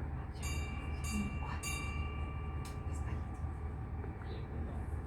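Steady low rumble of a small children's-railway passenger train standing ready to depart, heard from inside a carriage. From about half a second in, three faint metallic strikes ring on for a second or so.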